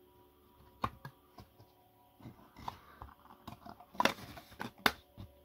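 Light clicks and taps of thin laser-cut plywood kit parts being handled and pressed together, with a sharp click about a second in and two louder knocks near the end.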